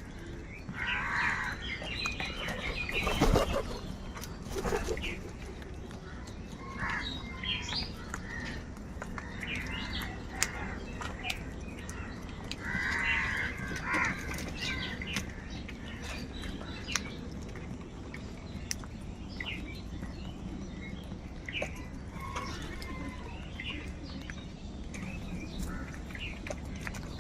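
Several crows cawing, their calls scattered and overlapping, over a steady low background rumble. A loud sharp knock comes about three seconds in.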